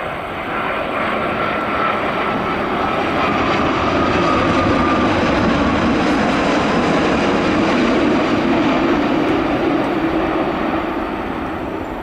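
Jet airliner passing by. The engine rush swells to a peak and then fades, with a whine that falls slightly in pitch as it goes.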